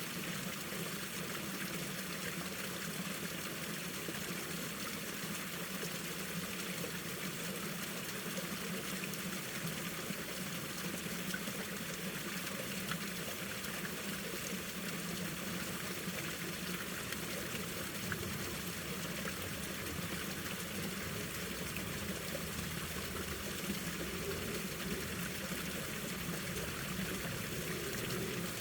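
Mountain valley stream running over rocks: a steady, unbroken rush of flowing water.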